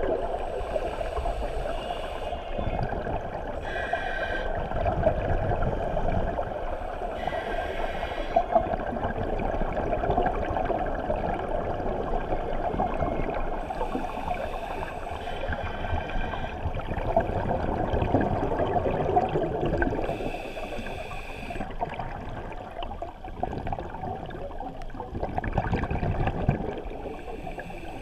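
Underwater recording of a scuba dive: a steady rushing of moving water around the camera, with short bursts of hissing bubbles every few seconds from divers' regulator exhalations.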